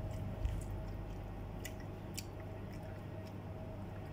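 Quiet room tone: a steady low hum with a few faint, short clicks or taps scattered through it.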